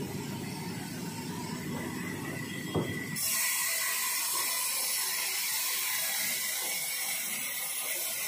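Sawmill band saw running with a log being fed through it by hand. A low dense rumble at first and a sharp knock just before three seconds in, then a steady high hiss of the blade cutting through the wood.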